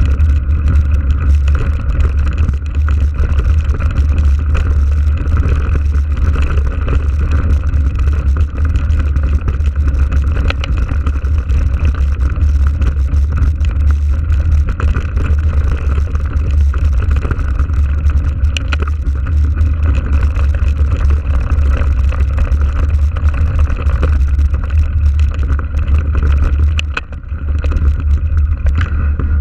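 Steady wind rumble on the microphone of a camera riding on a moving mountain bike, with the tyres running over a dirt track; it dips briefly near the end.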